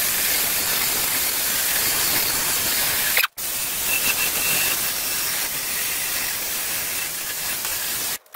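Cordless Ryobi drill spinning a wire brush against a rusty cast-iron grill grate: a steady, harsh, scratchy hiss, cut off for a moment about three seconds in.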